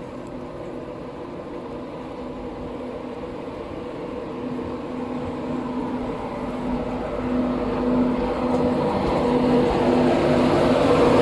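Class 91 electric locomotive, number 91119, hauling an InterCity 225 set as it approaches: a steady hum with a rising rush of wheel and rail noise, growing steadily louder as the train draws close.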